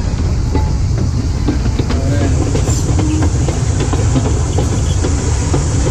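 Carriage of the narrow-gauge Pelion railway running along the track: a steady low rumble with frequent short clicks and rattles from wheels and rails, heard from the carriage's open end platform.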